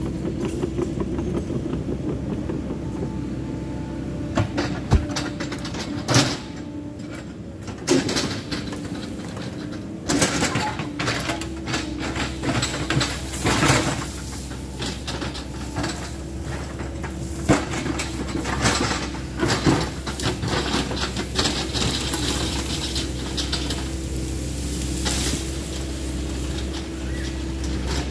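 Caterpillar 308 mini excavator's diesel engine running steadily as the machine swings and works its bucket, with a dozen or so sharp knocks and cracks of wood and brush scattered through.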